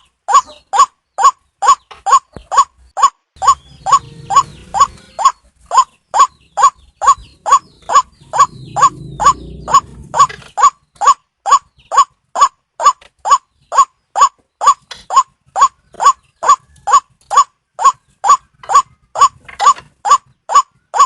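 White-breasted waterhen (ruwak-ruwak) call, used as a hunting lure: a short, sharp note repeated steadily, about two to three times a second, without a break. A low rumbling noise runs under the calls a few seconds in and again near the middle.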